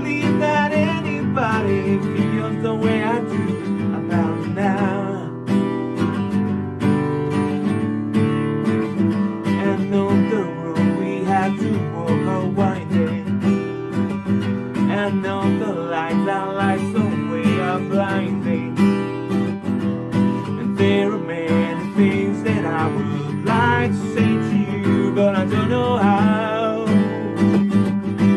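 Acoustic guitar strummed steadily.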